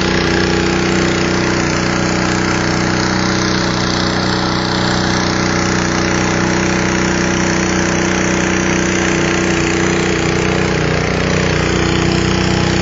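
A river boat's engine running steadily at an even pitch, heard close up from on board.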